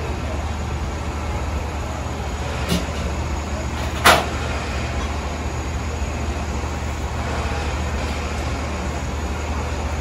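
Steady low rumble, like an idling engine, with a faint knock near three seconds and a sharp metallic clank about four seconds in.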